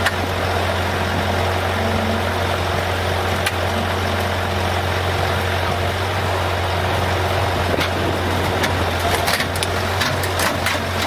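A vehicle engine idling steadily with a low, constant hum over a rushing background noise, with a few light clicks near the end.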